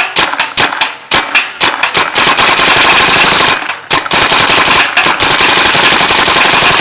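Tippmann Alpha Black paintball marker firing semi-automatically as fast as the trigger can be pulled. It starts with a few separate shots, then goes into two long rapid strings broken by a brief pause, and stops abruptly near the end.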